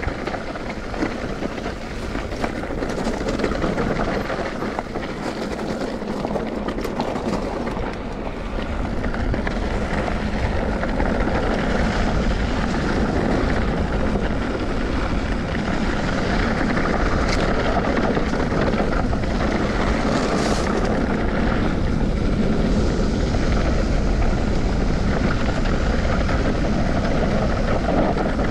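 Steady noise of a vehicle on the move, engine and wind rush blended together, growing a little louder about eight seconds in.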